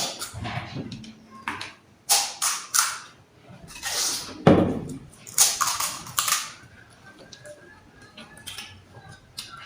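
Pani puri being eaten fast: crisp hollow puri shells crunching and the spiced water slurped, in a string of short crunches bunched in the middle, with quieter chewing near the end.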